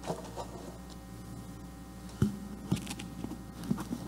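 Handling noise on a worn microphone being adjusted at the ear: soft rustling with a few dull knocks, the loudest about two seconds in and more near the end.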